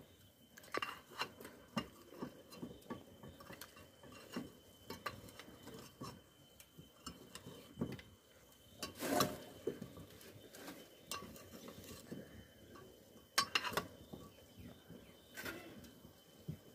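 Metal spoon stirring meat in a metal cooking pot, clinking and scraping against its sides in irregular light knocks, with a few louder clinks about nine, thirteen and fifteen seconds in.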